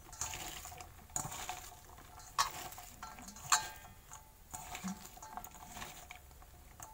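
Chopped bitter gourd, onion, ginger, garlic and green chillies tossed and mixed by hand in a stainless steel bowl: a soft irregular rustle of the vegetable pieces, with a few sharp clicks against the bowl, the loudest about one, two and a half and three and a half seconds in.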